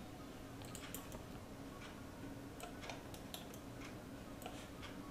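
Faint, irregular clicks of a computer mouse being used, over a low steady hum.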